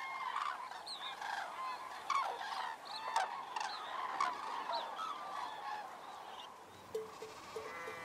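A flock of common cranes calling, many overlapping calls at once. Near the end, music with a soft repeating note comes in.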